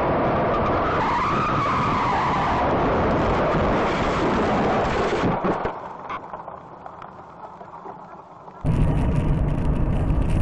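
A car skidding: loud tyre and road noise with a squeal that rises and falls about a second in. The noise falls away sharply a little past halfway. Near the end it cuts abruptly to louder driving noise.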